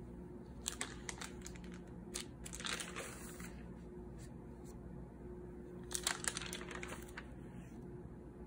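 Paper pages of a spiral-bound notebook being turned, rustling and crinkling in short bursts: about a second in, again around two to three seconds, and once more around six seconds, over a faint steady hum.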